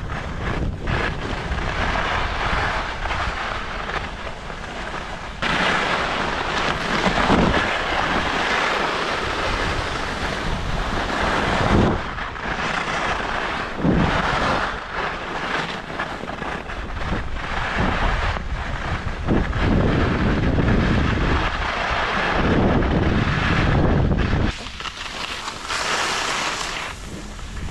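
Wind rushing over the microphone during a ski run, with the hiss and scrape of skis on hard, icy snow. The sound swells and eases in surges and drops away briefly near the end.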